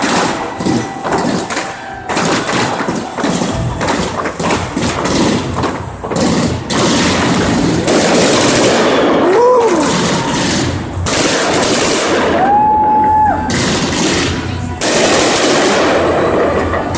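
Fireworks going off all around: a dense, unbroken run of rapid bangs and crackling. About halfway through a short tone rises and falls, and a few seconds later a steady tone is held for about a second.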